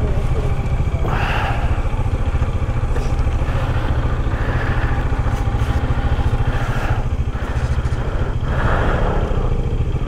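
Bajaj Dominar 400's single-cylinder engine running with a steady low, fast pulse, with a few brief swells of higher-pitched noise over it.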